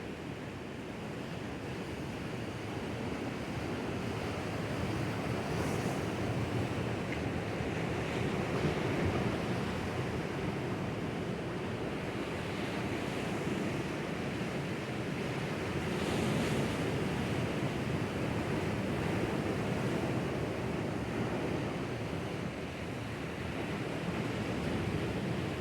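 Sea waves surging and washing over rocks on the shore, a continuous wash that swells and eases, with brighter splashes about six seconds in and again about sixteen seconds in.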